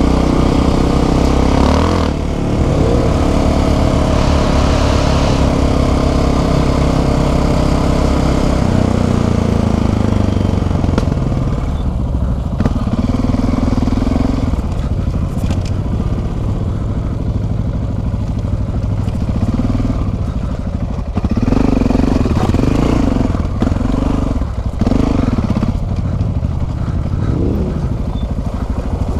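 Single-cylinder Yamaha dual-sport motorcycle engine running while riding a gravel track, its note rising and falling with the throttle. It revs up in several short bursts in the second half.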